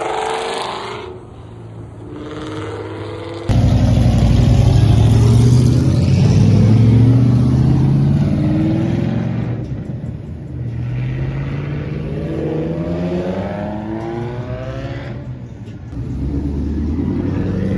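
Mustang engines revving and accelerating hard, their pitch climbing in repeated rising sweeps. The sound cuts in abruptly louder about three seconds in, and again near the end.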